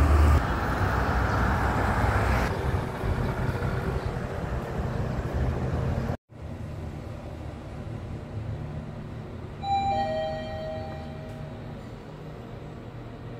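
Street traffic, with vehicles passing and a low engine rumble, loudest at the start. It cuts off about six seconds in, giving way to a quieter low hum. A little before ten seconds in, an elevator arrival chime sounds two notes, a higher tone then a lower one.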